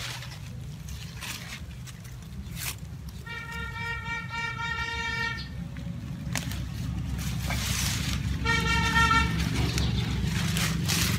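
A vehicle horn sounds twice, a long blast of about two seconds and then a shorter one, over a steady low engine rumble that grows louder. A few sharp clicks and rustles come from the gerbera clump's leaves and soil being pulled apart by hand.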